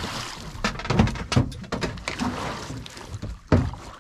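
Hooked peacock bass thrashing and splashing at the water's surface beside a boat, in irregular splashes and slaps, the loudest about three and a half seconds in.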